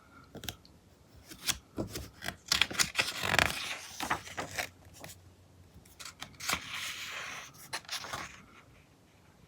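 Pages of a glossy, heavy-paper magazine being handled and turned, crackling and rustling in two spells with scattered sharp clicks of the paper.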